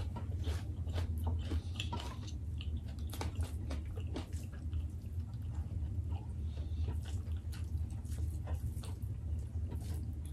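Close-miked eating sounds: chewing and wet mouth clicks and smacks, mixed with the small sounds of fingers working rice and beef rendang on plates, over a steady low hum.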